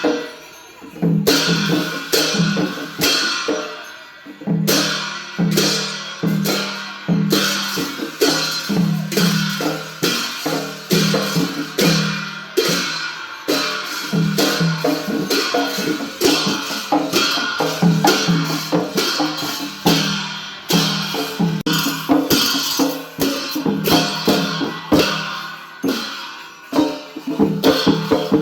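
Traditional Newar festival percussion music: drums and clashing cymbals playing a fast, steady rhythm, with a brief lull about a second in.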